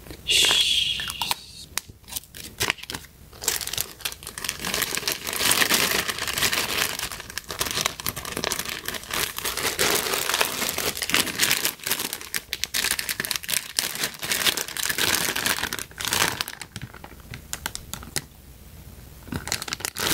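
Thin clear plastic bags crinkling and rustling as hands dig through packaged cosmetics, with scattered small clicks and taps; it dies down for a couple of seconds near the end.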